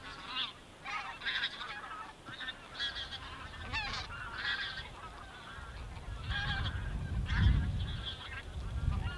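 A flock of geese honking: many short calls, some overlapping, repeated throughout. A low rumble builds in the second half.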